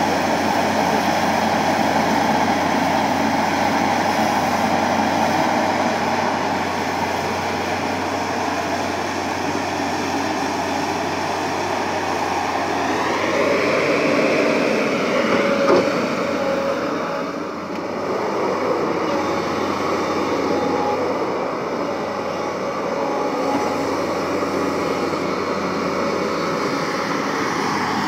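Tata Hitachi tracked excavator working under load, its diesel engine and running gear making a steady, heavy mechanical din. About halfway through the engine note rises, and a single sharp knock follows soon after.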